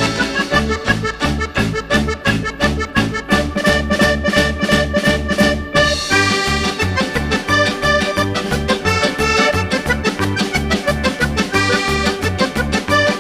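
Upbeat background music with a steady, even beat and a bright melody instrument, likely an accordion.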